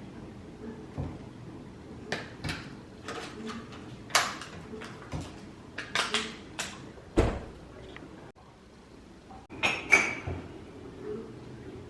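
Objects being handled indoors: a series of separate light clicks and knocks, the sharpest about four, seven and ten seconds in.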